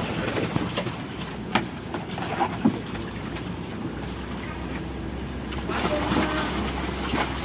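Water splashing and sloshing in a tank as large catfish thrash and are scooped out with a landing net, with a few sharp knocks in the first few seconds. The splashing is loudest about six seconds in.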